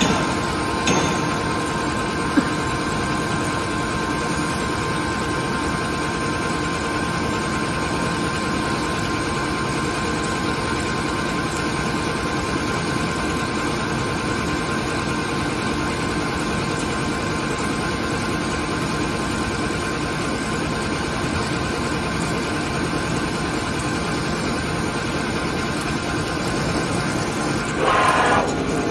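ALLES ALCK6163X1500 CNC lathe turning a bar under coolant spray: a steady machine running noise with a constant high tone over it. A single sharp click comes about two seconds in, and a brief louder rush of noise near the end.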